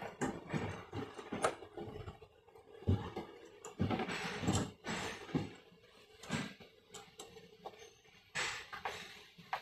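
Irregular clicks, knocks and short scrapes of parts and tools being handled, with a faint steady hum underneath.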